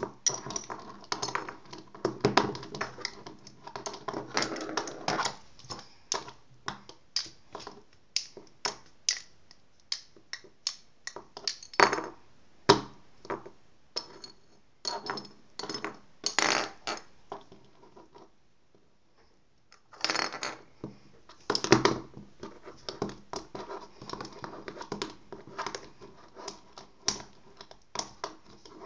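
A fountain pen and a ballpoint pen being flicked, tapped and knocked against each other on a tabletop: a quick, irregular run of sharp plastic and metal clicks and taps. The clicks pause for about two seconds roughly two-thirds of the way through, then start again.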